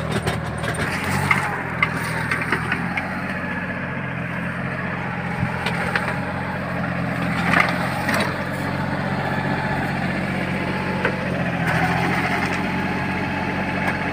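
Small 4x4 tractor's diesel engine running steadily under load as it drives a Maschio rotavator through the soil between sugarcane rows. A few sharp cracks stand out above it: cane stalks snapping against the tractor and tiller.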